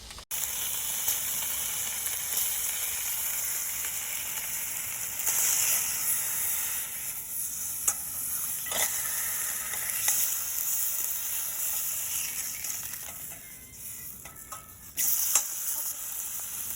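Food sizzling and frying in a hot pan: a steady hiss with occasional sharp pops and crackles of spitting fat.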